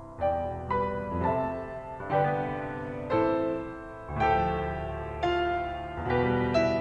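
Slow, gentle solo piano music, with chords struck roughly once a second, each ringing and fading.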